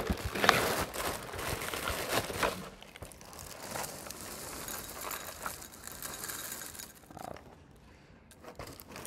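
A cardboard cereal box and its plastic inner bag crinkling and rustling as they are handled and opened, loudest in the first couple of seconds. Dry Cap'n Crunch cereal then pours into a ceramic bowl with a quieter scattered rattle.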